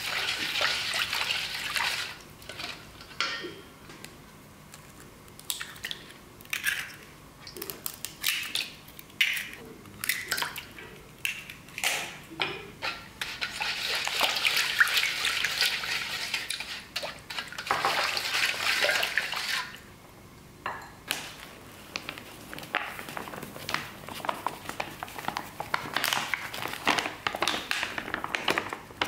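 Silicone spatula stirring a watery sugar-and-egg mixture in a stainless steel bowl: swishing and splashing in spells of a few seconds, with scattered clicks and taps in between.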